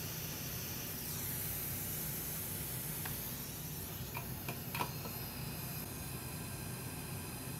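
Steady fan hiss from a running fume extractor at the soldering bench, with a few light clicks about four to five seconds in.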